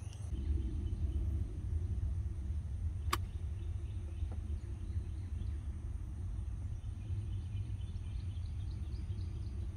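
Steady low rumble of wind on the microphone on an open golf course, with one sharp click about three seconds in and faint bird chirps.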